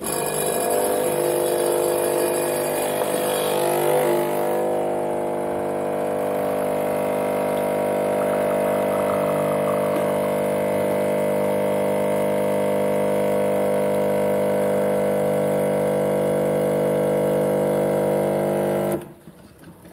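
Home espresso machine's pump running as it pulls a single shot: a steady, loud hum that starts at once and cuts off suddenly near the end, after about nineteen seconds.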